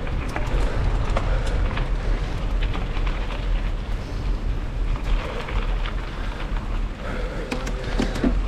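Wind buffeting the microphone of a camera on a hardtail mountain bike being ridden over rough ground, with tyre noise and scattered sharp clicks and rattles from the bike.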